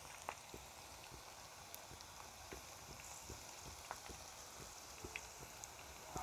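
Cabbage pakoras in gram-flour batter deep-frying in hot oil: a steady, soft sizzle with many small scattered pops and crackles.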